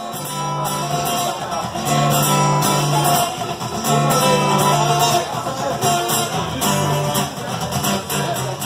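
Music of strummed guitar in a steady rhythm over a bass line, easing off near the end.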